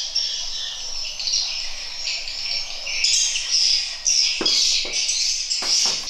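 Dense high-pitched chirping of birds mixed with the steady chirr of insects, a little louder from about halfway through, with a few soft knocks near the end.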